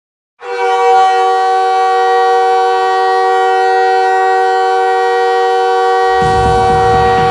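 Montreal Canadiens goal horn blasting: a loud, steady chord of several held tones that starts abruptly about half a second in and holds without a break. About six seconds in, a low noise joins underneath the horn.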